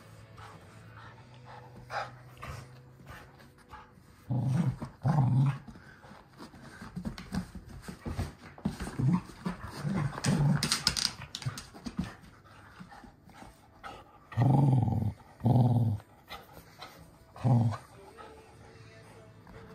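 Red cocker spaniel growling in short low bursts as he tugs at a stuffed toy chicken: play growls in a game of tug-of-war. There are two growls about four to five seconds in and three more near the end, with several seconds of scuffling and rustling of the toy in between.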